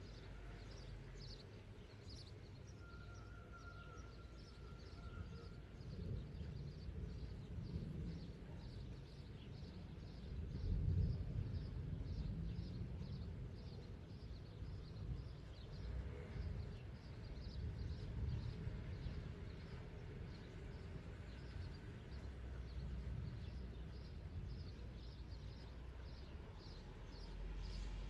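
Outdoor mountain ambience: a low rumble of wind on the microphone that swells and fades, loudest about eleven seconds in, under a steady row of short high chirps, about two or three a second.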